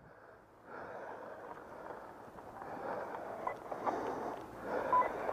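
Outdoor background noise fading in and building to a steady rushing hiss, with a few faint clicks.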